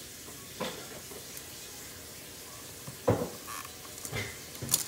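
A hand tool and stiff aluminum wires being handled in a wall electrical box: a few short knocks and scrapes, the loudest about three seconds in, over a steady hiss.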